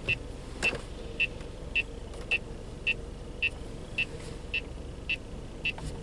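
Car turn-signal indicator ticking steadily inside the cabin, a short high tick a little under twice a second, over a faint hum of the idling car.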